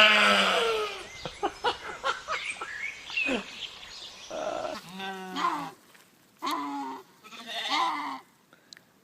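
Livestock bleating: a loud call falling in pitch at the start, a run of short clicks and knocks, then several shorter bleats, one with a wavering tremble.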